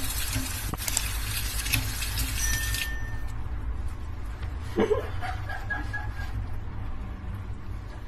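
Kitchen tap running, its stream splashing into a steel sink. The hiss of the water drops away sharply about three seconds in, leaving a softer flow and a low hum.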